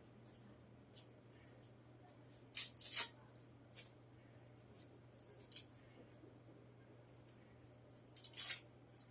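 A keyboard's USB cable and its plastic wrapping being handled: short crackly rustles and clicks, loudest about three seconds in and again near the end.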